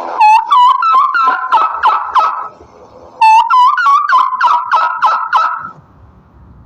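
Turkey gobbling in two bouts of quick repeated notes, the second starting about three seconds in.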